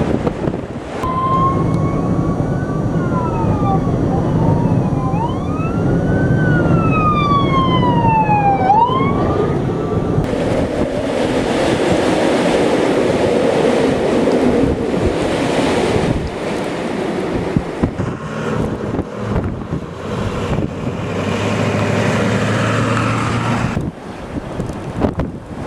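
Emergency vehicle siren wailing, its pitch sweeping up and down in ever quicker glides before it stops about ten seconds in. Underneath is a steady rush of noise.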